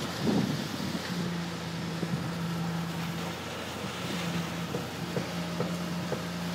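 Concrete-pour machinery running steadily: a constant hum with one steady tone that drops out for a moment a little past the middle. Scattered short knocks and rattles sound over it, the strongest just after the start.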